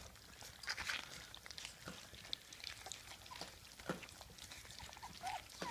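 Four-week-old Weimaraner puppies eating wet gruel from a shared metal pan: faint, irregular lapping and smacking. A brief puppy whine comes near the end.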